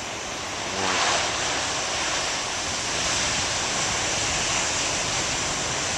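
Ocean surf: a steady roar of breaking waves that swells about a second in and then holds.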